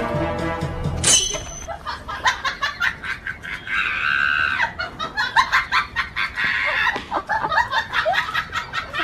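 Background music cuts off about a second in, giving way to chickens squawking and clucking in agitation as they fight off a dog, with a dense run of short sharp sounds.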